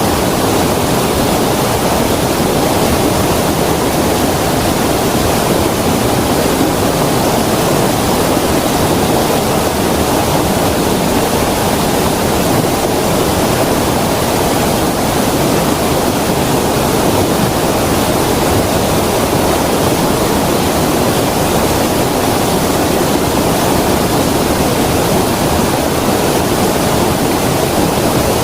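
Creek water rushing over stones in a steady, unbroken flow.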